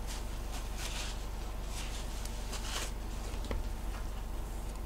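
Soft rustling of a paper towel and gloved hands handling a plastic epoxy jug, three brief rustles and a couple of light clicks, over a steady low background hum.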